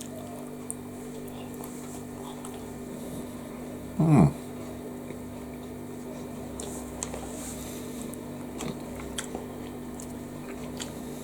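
A man chewing a mouthful of soft steamed bao bun: faint scattered mouth clicks over a steady low hum, with one short falling voice sound about four seconds in.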